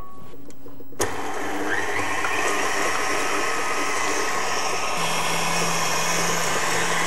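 KitchenAid Artisan stand mixer switching on about a second in and running steadily, its wire whisk beating egg whites in the steel bowl. About five seconds in its sound shifts, with a low hum added, as the speed lever is moved.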